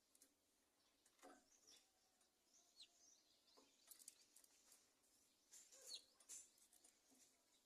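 Faint, scattered bird chirps: short high notes, a few sliding downward, repeated irregularly.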